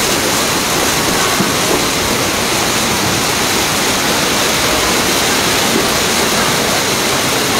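Fast-flowing typhoon floodwater rushing down a street in a torrent: a steady, loud rush of churning water.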